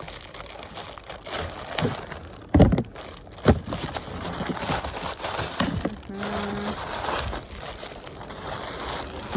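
Plastic mailer package being handled and torn open: crinkling and crackling, with two sharp thumps about two and a half and three and a half seconds in, and a short low hum a little past the middle.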